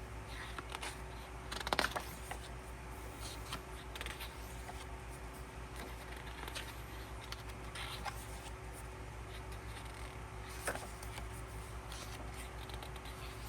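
Pages of an album photo book being turned and handled: soft paper rustles and light taps, the loudest about two seconds in and another near eleven seconds, over a steady low hum.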